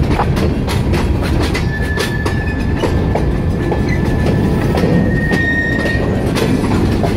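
Covered hopper cars of a long freight train rolling past at close range: a steady rumble with wheels clicking over the rail joints. A thin, high wheel squeal holds from about a second and a half in until about six seconds in.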